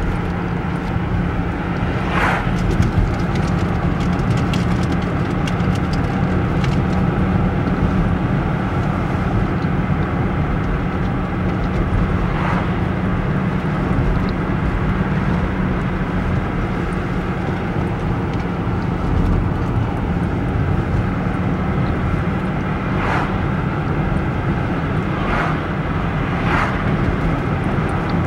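Steady engine and tyre rumble of a car driving on a paved road, heard inside the cabin, with a few brief clicks here and there.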